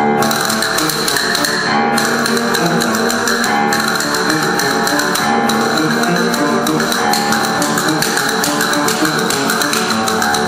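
Castanets clicking in fast, dense rolls over guitar music.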